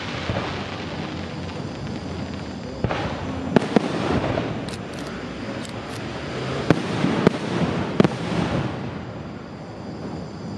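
Aerial firework shells bursting: several sharp bangs from about a third of the way in, with crackling that swells and fades between them.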